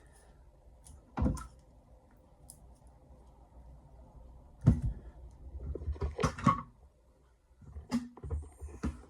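Whetstones and gear being moved around and set down on a work surface: a scatter of knocks and clunks. The loudest comes about halfway through, and a quick cluster of knocks follows.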